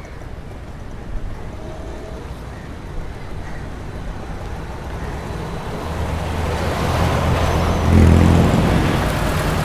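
Road traffic: a steady rumble of passing vehicles, growing louder from about six seconds in as a vehicle with a low engine hum comes close and passes, loudest near eight seconds.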